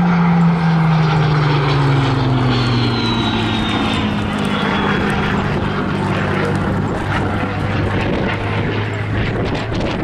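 Supermarine Spitfire Mk Vb's Rolls-Royce Merlin V12 engine and propeller droning through a fly-past, the pitch falling steadily as the aircraft passes and draws away.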